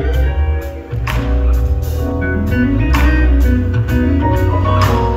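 Live gospel band playing an instrumental passage: guitar over drums and a heavy low end, with a sharp drum hit about every two seconds.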